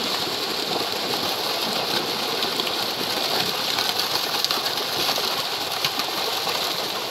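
A mass of netted fish thrashing at the surface of shallow pond water, a steady, dense splashing and churning full of small crackles.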